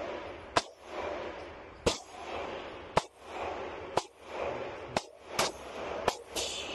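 Glock subcompact 9mm pistol fired in slow, single shots at an indoor range, about one a second, then quicker near the end.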